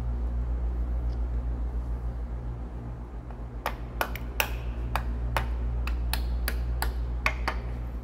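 About a dozen sharp metallic taps, roughly three a second, starting about halfway through, as a metal hand tool strikes the cam follower parts on a Caterpillar 3406B engine block. A steady low hum runs underneath.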